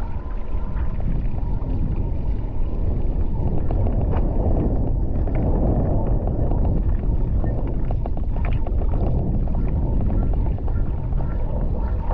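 Wind buffeting the microphone as a stand-up paddleboard speeds over the open sea, with a steady rush of water and spray and scattered small splashes along the board.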